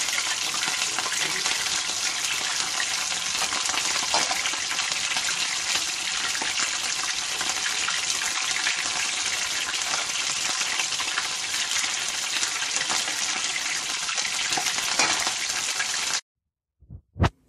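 Coated chicken breast strips sizzling and crackling as they deep-fry in hot oil in a pan. The sound cuts off suddenly near the end, followed by two short clicks.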